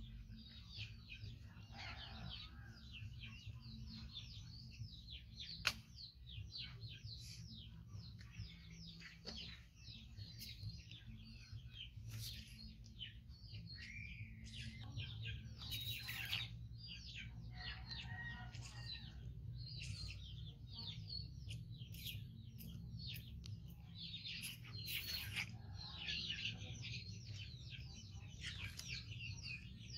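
Birds chirping busily: many short, high calls one after another, over a steady low hum, with a single sharp click about six seconds in.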